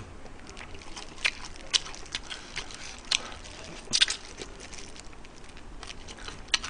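Close-miked biting and chewing of fried chicken: irregular crisp crunches and crackles, the loudest cluster about four seconds in.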